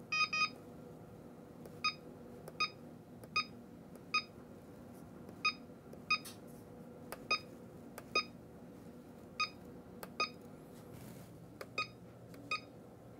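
Cellpro Powerlab 8 battery charger beeping at each button press as its menu is stepped through to set up a cell discharge. A quick triple beep, then about a dozen short single beeps at uneven intervals.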